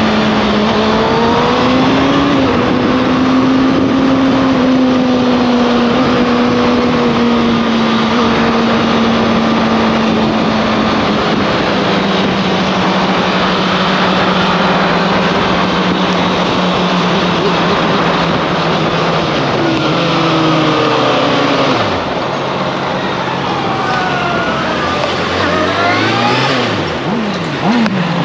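Motorcycle engine running under way over heavy wind rush. The engine note holds steady, drops about halfway through, then falls off and rises again in several quick revs near the end.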